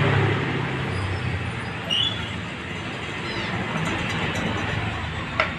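A motor vehicle's engine running as it goes by, a steady hum with road noise that eases over the first couple of seconds, and a sharp click near the end.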